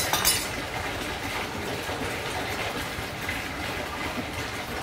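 Tap water running steadily into a large stainless steel basin half full of water. A brief clink comes just after the start.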